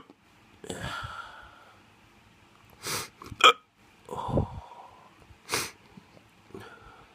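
A person hiccupping repeatedly: several short hiccups with breaths between them, the sharpest about three and a half seconds in.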